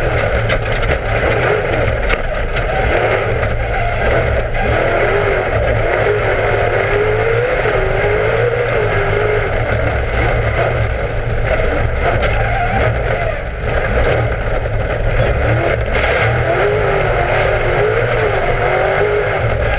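Class 1 off-road race car's engine running hard, its pitch rising and falling with the throttle, over a heavy low rumble and scattered knocks from the rough course.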